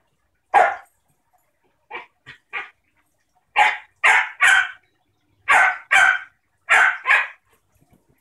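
Dog barking in play: a single bark, then short runs of two or three quick barks, about eleven in all, with the later ones loudest.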